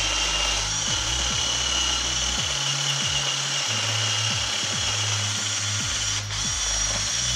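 Background music with a steady bass line, over the whirr of a cordless drill running.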